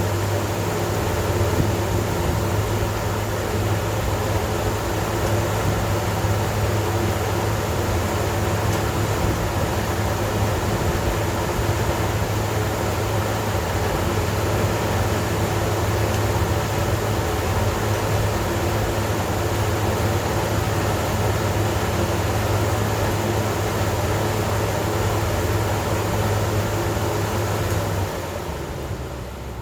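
Industrial pressure ventilation fans running: a steady rush of air over a strong, even low hum. The sound starts to wind down about 28 seconds in.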